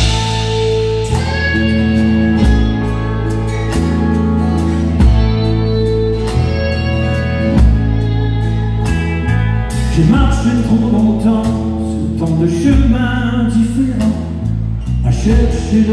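Live country band of guitars, bass and drums playing a slow song's introduction, with a steady beat. A lead melody joins about ten seconds in.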